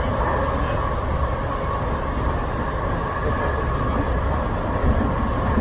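Amtrak passenger train running, heard from on board: a steady rumble with an even hum over it.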